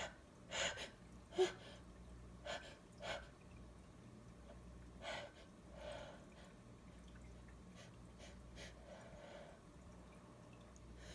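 A person's short, breathy gasping inhalations, several of them a second or so apart and fading toward the end: the hitching build-up breaths before a sneeze.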